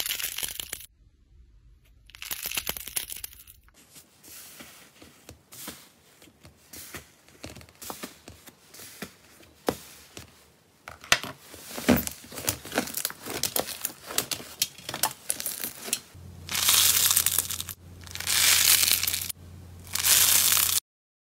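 Textured slime being torn, squeezed and stretched by hand, crackling and tearing. Many small sharp pops and clicks run through the middle, and three longer, louder crackling tears come near the end.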